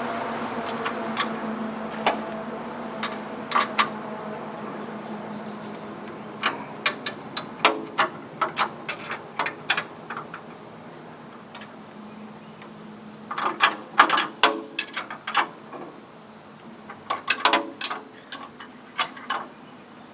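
Wrench work on a portable bandsaw sawmill's blade tension and tracking adjuster: sharp metal clicks and clanks in quick clusters, at about seven to ten seconds, again around fourteen seconds and near eighteen seconds, over a low hum that fades.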